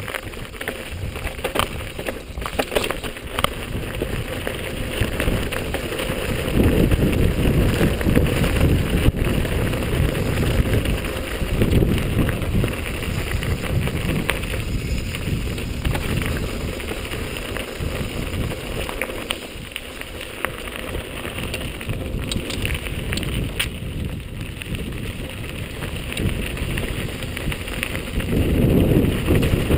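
Mountain bike rolling fast down a rough stony trail: tyres crunching over gravel and the bike rattling, with occasional sharp knocks from bumps. Wind rushes over the camera microphone throughout and gets louder at times.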